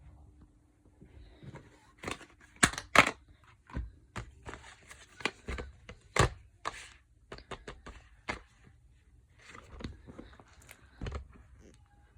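Stylus pen packaging being handled and opened by hand: irregular crinkling, tearing and sharp clicks of plastic and cardboard.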